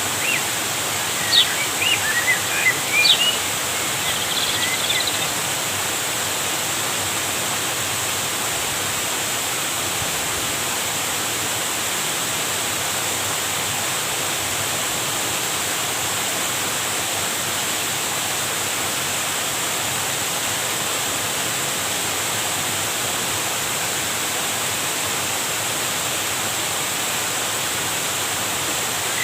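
Steady rushing of flowing river water, with a few short high chirps in the first few seconds.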